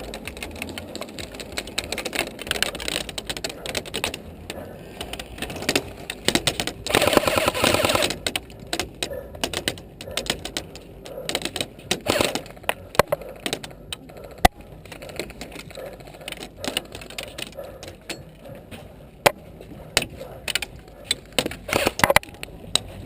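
Airsoft guns firing in an indoor game: scattered single shots and short bursts of rapid clicking, with a longer full-auto burst from an electric airsoft rifle about seven seconds in.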